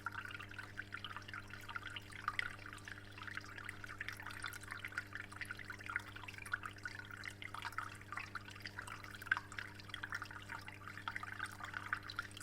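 Water trickling and splashing continuously in a discus aquarium, over a steady low hum.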